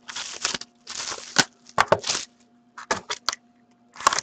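Shrink-wrap being torn and crinkled off a sealed hockey card box by hand, in several short rustling bursts with sharp cracks. A faint steady hum sits underneath.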